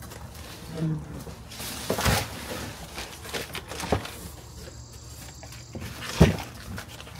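Cardboard box and kraft-paper packing being handled: rustling and scraping, with a few knocks and thumps, the loudest about six seconds in.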